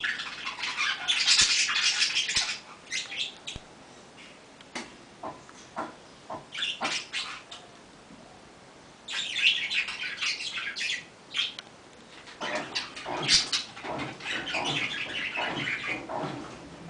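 Mabe 15 kg washing machine in its wash cycle, water swishing and sloshing in surges with short gaps between, and scattered clicks.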